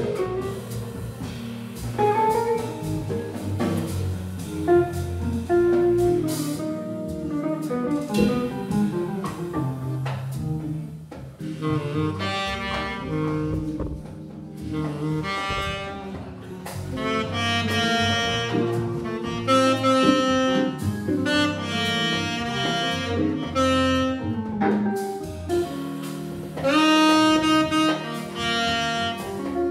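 Live jazz from a quartet of tenor saxophone, electric guitar, Hammond organ and drums, in a marble foyer with huge natural reverb. The guitar leads at first, and the tenor saxophone comes in with long held notes about twelve seconds in.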